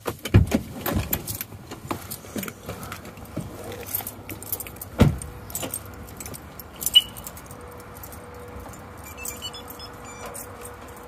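Keys jangling and clicking among handling knocks as someone climbs out of a van. A single heavy thump comes about five seconds in, over a steady background of outdoor noise.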